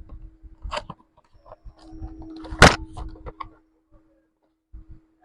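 Handling of a product box during unboxing: scattered clicks and rustles of cardboard and packaging, with one loud sharp snap about two and a half seconds in. A steady hum runs underneath.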